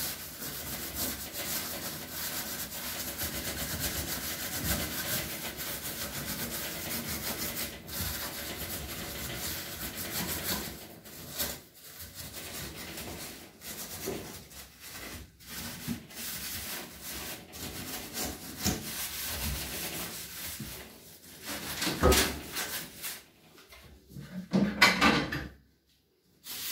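Gloved hand scrubbing the enamel top and lid of a gas stove: steady back-and-forth rubbing, breaking into separate strokes about halfway through, with two louder scrapes or knocks near the end.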